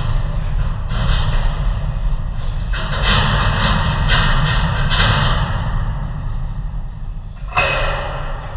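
Heavy low rumble from a camera fixed to the goal netting, with bursts of rattling as the net and mount shake, and a sudden thump about seven and a half seconds in.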